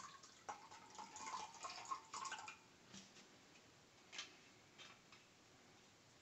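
Vodka pouring from a bottle into a glass measuring cup: a faint trickle whose pitch rises slightly as the cup fills, stopping about two and a half seconds in. A few light clicks follow as the bottle is handled.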